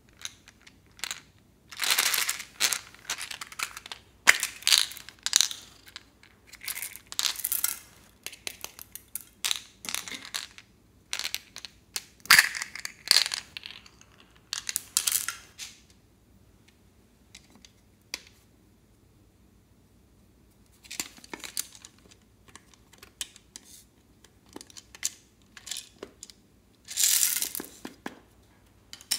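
Small plastic beads and charms poured and dropped into a glass dish of clear slime, clicking and rattling in short bursts with pauses between.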